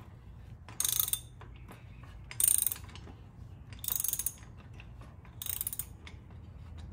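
Socket ratchet clicking in four short runs about a second and a half apart as its handle is swung back between strokes, tightening a Toyota Tacoma's oil filter housing until it starts to seat.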